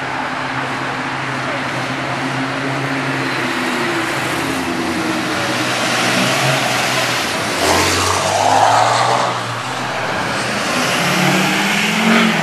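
Cars and pickup trucks driving past one after another, their engines accelerating. The loudest pass comes about eight seconds in, and another engine revs up near the end.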